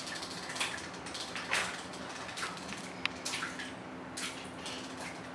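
Plastic toy fishing rods and reels being handled and cranked, giving scattered light plastic clicks and rattles, about three a second.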